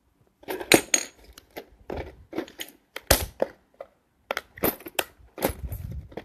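Button-making hand press and its button parts being handled and set in place: a run of irregular clicks and knocks, the loudest about three seconds in.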